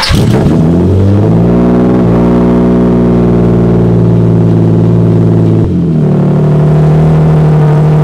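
A single-turbo Nissan 370z's 3.7-litre V6 starts, its note rising quickly as it catches, then idles steadily. The idle note shifts about five and a half seconds in.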